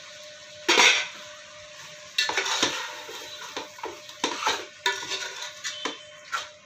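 A metal ladle stirring chicken and chopped tomatoes in an aluminium pot: one loud clank about a second in, then repeated scrapes and knocks of metal on the pot, with the food sizzling.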